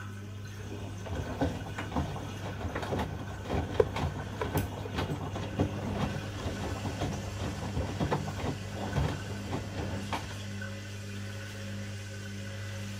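Washing machine running mid-cycle: a steady low hum, with irregular clicks and knocks from the tumbling load from about a second in until about ten seconds in.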